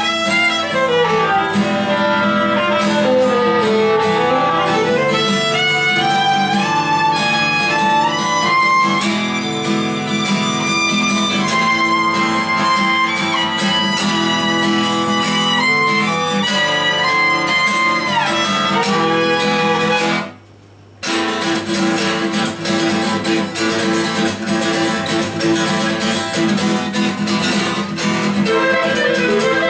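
A live trio of violin, clarinet and acoustic guitar playing an instrumental folk piece, with the violin and clarinet carrying the melody over the strummed guitar. The sound cuts out for under a second about twenty seconds in, then the guitar strumming comes through more strongly.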